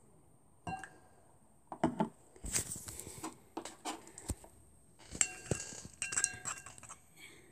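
A spoon clinking and scraping against a bowl in irregular strokes, some ringing briefly, while more activator is stirred into clear glue slime.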